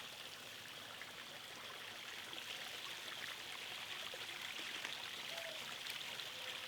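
Faint, steady rush of running water, with no other sound standing out.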